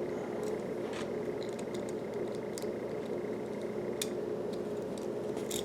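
Small plastic Lego pieces being handled and pressed together: a few faint scattered clicks over a steady background hum.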